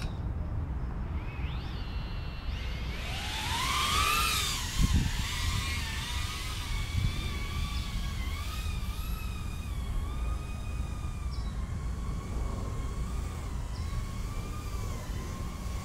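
BetaFPV Meteor75 Lite whoop's 1102 18,000 kV brushless motors spinning up with a steeply rising whine as it lifts off, then a high whine that wavers up and down in pitch with throttle as it flies. A brief knock comes about five seconds in.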